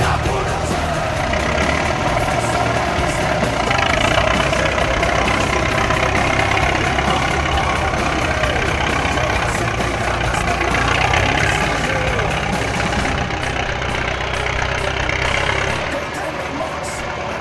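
DT-75 crawler tractor's diesel engine running steadily while the tractor pushes manure with its dozer blade. It gets a little quieter near the end.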